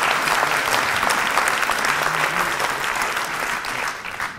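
Audience applauding, a dense clatter of many hands that dies away near the end.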